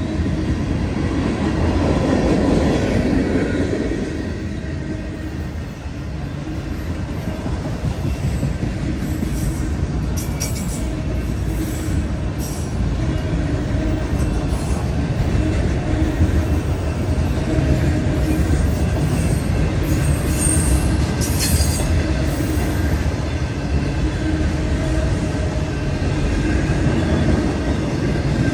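A freight train's cars, gondolas giving way to autoracks, rolling past: a steady rumble and clatter of steel wheels on the rail, with a few brief high squeaks from the wheels midway.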